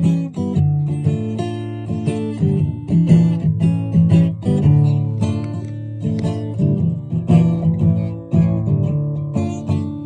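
Acoustic guitar music, with plucked notes and strums following one another closely.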